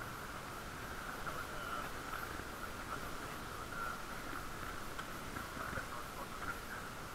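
Steady road noise from a bicycle being ridden: a continuous hum of the tyres and drivetrain, with small irregular rattles.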